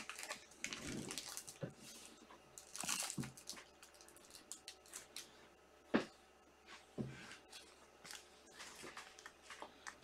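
Faint rustling and crinkling of trading-card packaging and plastic card holders being handled, with scattered sharp clicks, the loudest about six seconds in.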